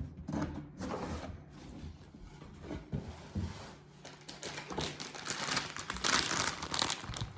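A cardboard box being opened and its packaging handled: scattered light knocks and rustles, then steady crinkling of wrapping from about four seconds in.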